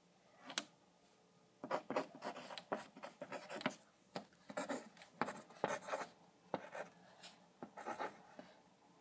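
Pen writing on paper close to the microphone: a run of quick, irregular scratching strokes as letters are written, starting about a second and a half in after a single tick.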